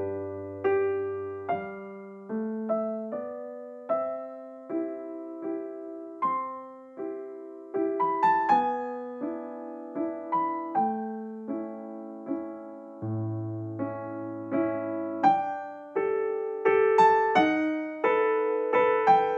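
Background piano music: a melody of struck notes that ring and fade, over occasional held low bass notes.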